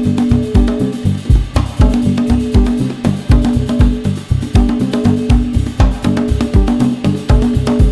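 Background music with a steady, busy drum beat and a held bass note.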